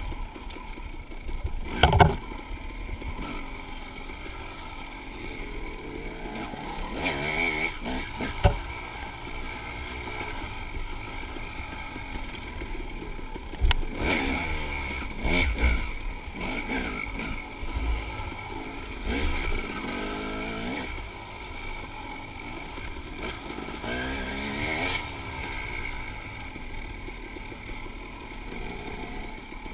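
Dirt bike engine heard from the riding bike itself, its pitch rising and falling again and again as the throttle is worked. A few sharp knocks cut in over it, the loudest about two seconds in.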